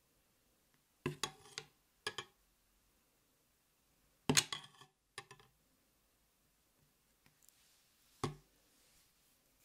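Short clinks and knocks of utensils against a stainless steel bowl of melted white chocolate while skewered freeze-dried strawberries are coated, about five separate knocks with the loudest a little after four seconds in.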